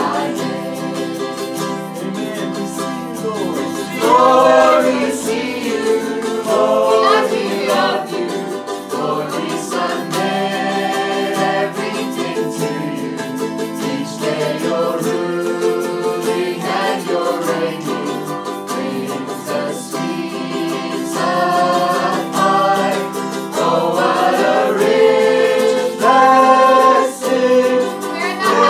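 A small group of men and women singing the chorus of a worship song together, accompanied by an acoustic guitar and a ukulele.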